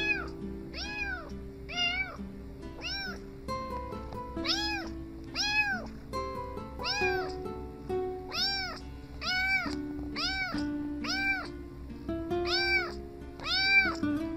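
A tabby kitten meowing over and over, about a dozen short meows roughly one a second, each rising then falling in pitch, over background music.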